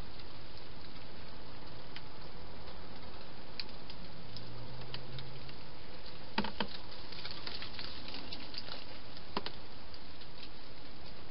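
Wild hedgehog feeding inside a plastic feeding station: scattered small crunches and clicks, bunched a little past halfway, over a steady hiss.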